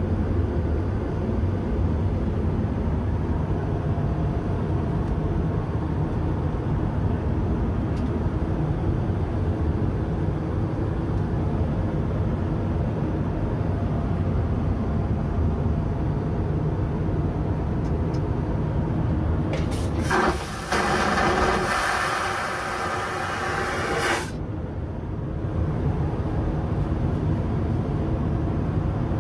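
Steady low drone of an Airbus A320 cabin in flight heard from the lavatory. About twenty seconds in, the vacuum toilet flushes with a loud rushing whoosh lasting about four seconds.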